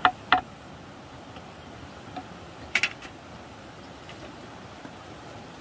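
A few sharp knocks over a steady low hiss: two close together at the start, then a double knock a little under three seconds in.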